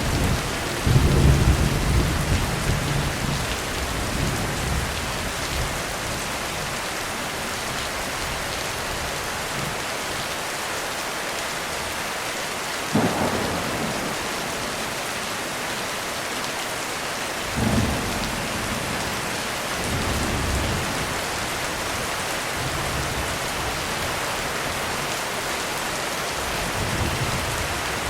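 Heavy rain falling steadily in a thunderstorm. Thunder rumbles low for the first few seconds, two sharper cracks come about 13 and 18 seconds in, and softer rumbles return in the second half.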